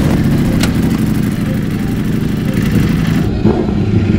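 Motorcycle engine running, a loud low rumble.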